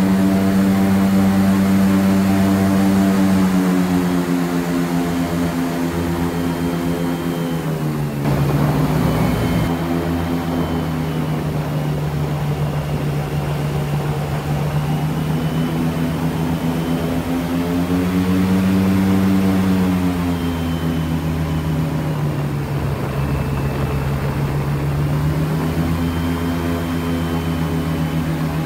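Airboat's engine and air propeller running under way, a loud steady drone whose pitch drops about a quarter of the way in, rises again about two-thirds through, then eases back down as the throttle is worked.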